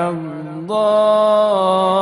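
A man's voice reciting the Qur'an in melodic tajwid style, drawing out a long vowel. The voice steps up to a louder, higher note about two-thirds of a second in and holds it steady.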